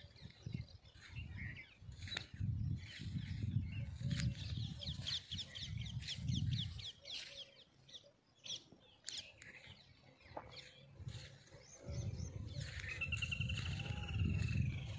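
Wind buffeting the microphone in gusts, with birds calling over it: a fast run of chirps about four seconds in and one long, drawn-out call near the end.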